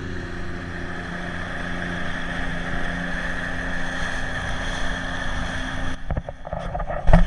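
Jet ski engine running steadily on the water, with a brief dip near the end followed by a loud thump.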